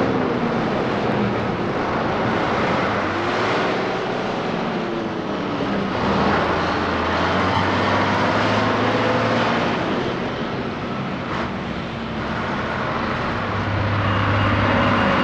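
Heavy trucks' diesel engines running as they pull container trailers, a steady mechanical drone. Pitch glides up and down early on, and a deeper hum comes in around the middle and again near the end.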